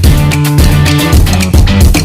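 Background music: a guitar, bass and drum-kit track with a steady beat.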